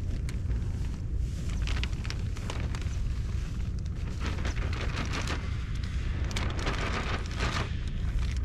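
Wind buffeting the microphone in a steady low rumble, with plastic bags crinkling and rustling in quick bursts, busiest in the second half.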